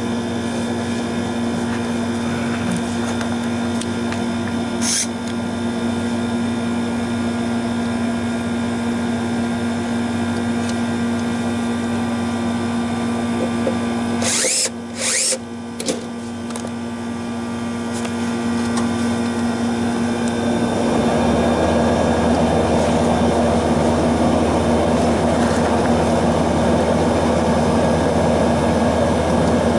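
Cordless drill/driver running, driving screws as a replacement compressor contactor is fitted, over a steady hum. It stops briefly about halfway, then runs louder through the last third.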